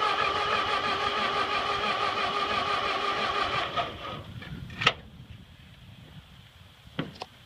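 Starter motor cranking the Ford 8N tractor's four-cylinder engine over steadily without it catching. The cranking stops about four seconds in, followed by a single sharp click about a second later.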